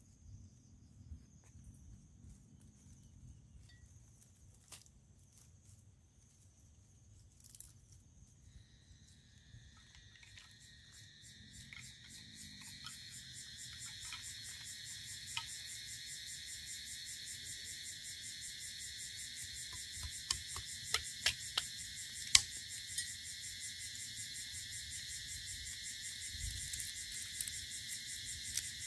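A loud insect chorus, a fast even pulsing trill, comes in about a third of the way through and swells to a steady drone; before it only a faint high steady tone is heard. Dry twigs at a small campfire give a few sharp snaps and cracks, a cluster of them past the middle.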